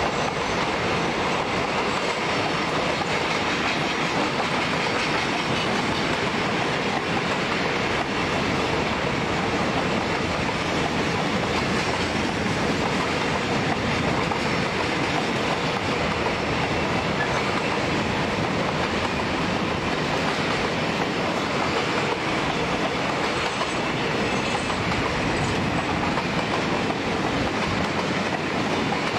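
Container freight train rolling past, its steel wheels running over the rails with a steady, unbroken noise.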